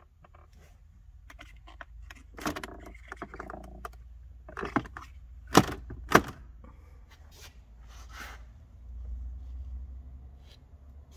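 Clicks, rattles and knocks of plastic dashboard trim and the glovebox lid being handled by hand in an Alfa Romeo 33's interior, with two sharp knocks about halfway through.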